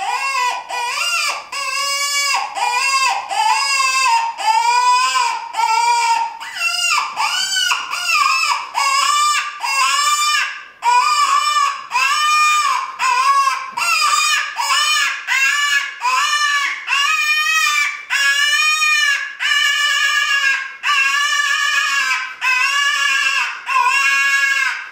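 Cane Creek P-61 Predator/Cow Elk mouth call blown as a predator call through a cupped hand: a steady run of short, wavering, pleading cries, about three every two seconds. The hand shaken over the end gives each cry a warble, and the calling grows louder over the first few seconds as the hand opens up.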